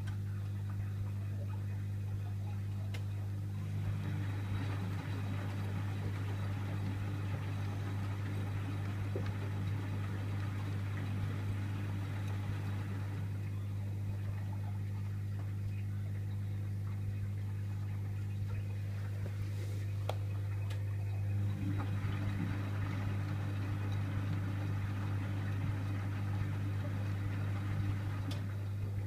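Privileg Multispar 5110 washing machine in its wash action: the drum turns with a churning, sloshing sound for about nine seconds, stops for several seconds, then turns again, over a steady low hum.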